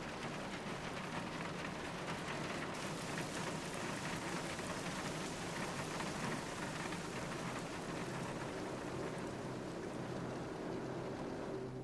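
Steady rain falling on a car, drumming on its roof and running down its windows.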